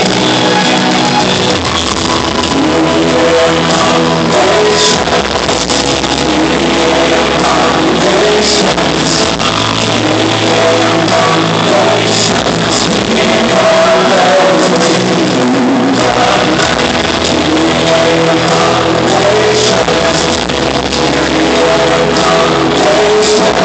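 Live amplified band music in an arena, heard from the audience seats, loud and continuous with a rock-style band sound and a voice singing over it.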